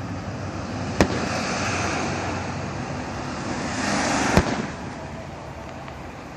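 Fireworks display: two sharp aerial shell bursts, about a second in and again about four and a half seconds in, over a steady noisy hiss that swells just before the second bang.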